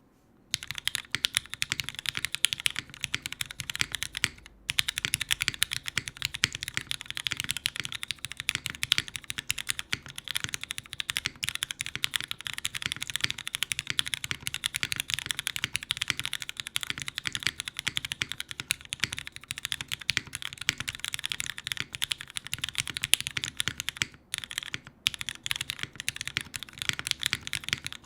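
Fast, continuous typing on a Kypseli TKL mechanical keyboard: lubed and filmed Cherry MX Black linear switches in a full aluminium plate with no foam, under GMK doubleshot ABS keycaps. The steady clatter of keystrokes starts about half a second in and breaks off briefly twice, about four seconds in and near the end.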